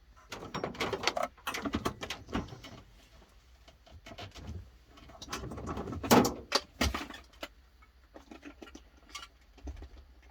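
Handling noise: rustling, clicking and clattering as tools and parts are picked up and moved about, in three bouts with short pauses between them.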